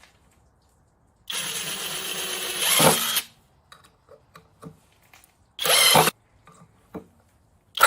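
Feihu 21 V brushless cordless impact wrench/drill fitted with a screwdriver bit, running in bursts on a screw: a two-second run that gets louder near its end, a short burst about halfway through, and another starting at the very end.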